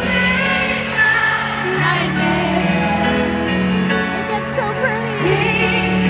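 A live pop ballad played through an arena's sound system: a woman sings over sustained low keyboard and bass notes. Her voice wavers in a run of ornamented notes near the end.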